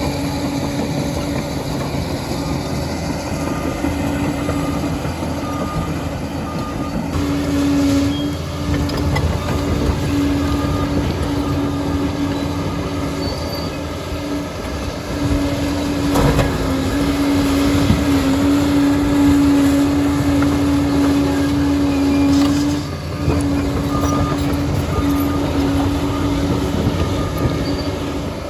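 Liebherr PR 746 crawler dozer working, its diesel engine running under load with a loud steady whine over the rumble and clatter of the steel tracks. The whine cuts out briefly twice, about a quarter of the way in and again near the end.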